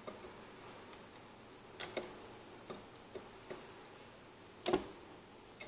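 Soldering iron and fingers working a mini USB connector on a circuit board, giving a few light, irregular clicks and taps, the loudest near the end, as the connector's back pins are pressed down onto their pads.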